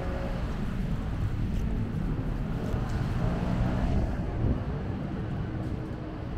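Outdoor city ambience: a steady low rumble of road traffic, swelling a little about three to four seconds in.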